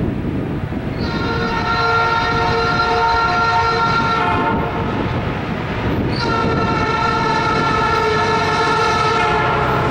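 Diesel locomotive air horn on an approaching EMD SD40-2 sounding two long blasts, the first lasting about three seconds and the second starting about two seconds later and still held at the end.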